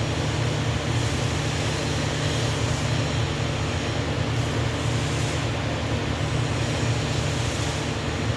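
Steady TIG welding on a 6-inch pipe: an even hiss over a constant low hum, with no breaks or changes.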